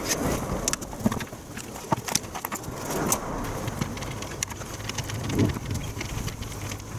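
Irregular light plastic clicks and taps from hands and a screwdriver working on a car's airbag clock spring housing.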